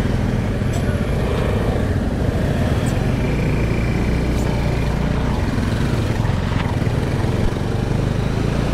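Motorcycle engine running steadily under way, a constant low drone with wind rush over it.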